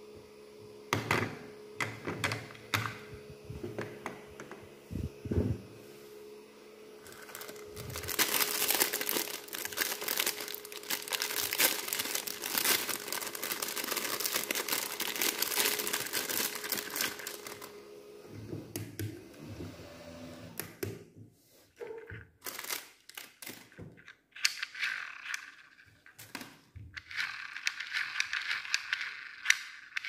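Plastic packaging bag crinkling and rustling as a small handheld fan is unwrapped, loudest and most continuous from about 8 to 17 seconds in. A small fan motor hums steadily underneath until about 18 seconds in, then scattered clicks and handling rustles follow.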